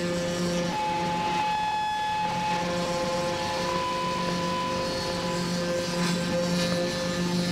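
Electric guitar noise drone: several steady held tones over a hiss, with a higher tone sounding for a couple of seconds and then giving way to another slightly higher one, heard from inside a toilet stall.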